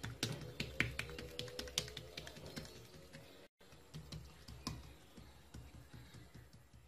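Fingers and palms patting and pressing a thin sheet of oiled dough flat against a tiled counter: an irregular run of light, sticky taps and clicks, broken by a brief gap about halfway.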